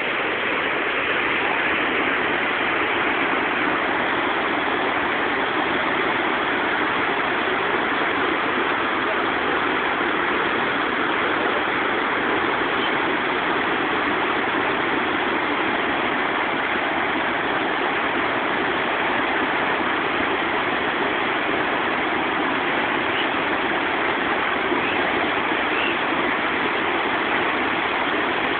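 Steady rush of white water pouring over the rocky rapids of the Great Falls of the Potomac River.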